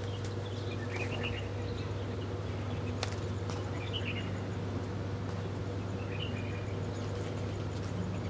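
Small birds giving short bursts of chirps every few seconds, with an occasional sharp click, over a steady low hum.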